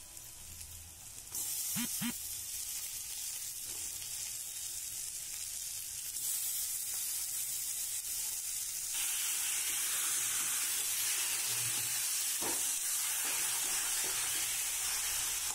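Bombay duck pieces sizzling in hot oil in a wok. The sizzle starts about a second in and grows louder in steps as more fish goes in and is stirred, with a few light knocks of the spatula against the pan.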